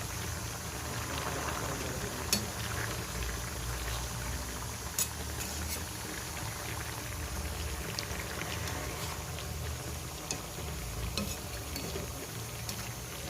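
A pot of food boiling on the stove: a steady bubbling hiss with a few sharp clicks scattered through it.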